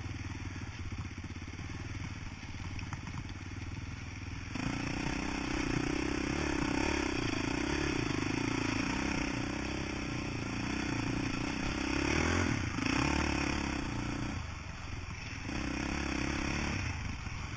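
Honda TRX450R quad's single-cylinder four-stroke engine running while riding. It is quieter for the first few seconds, then louder under throttle from about four and a half seconds in, with two brief let-offs near the end.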